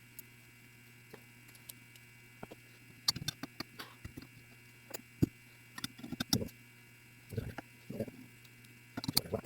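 Small scattered clicks and taps of clock movement parts being handled and fitted together, irregular and light, over a steady low hum.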